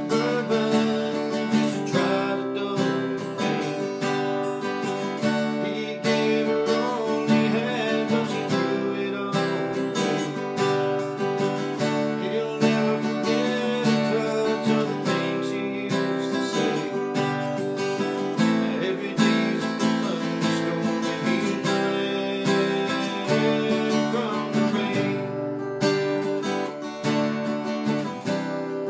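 Acoustic guitar strummed steadily, playing the chords of a song.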